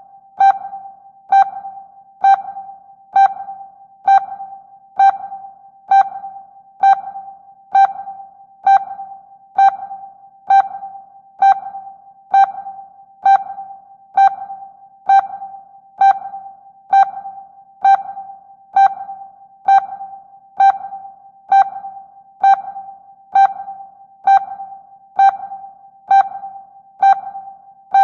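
Ship sonar pinging as a sound effect: a single mid-pitched beep repeats a little faster than once a second, each one fading away before the next.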